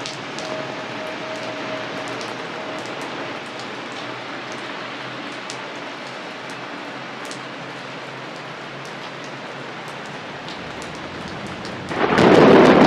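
Steady rain falling with scattered drop ticks, then about twelve seconds in a sudden loud clap of thunder begins.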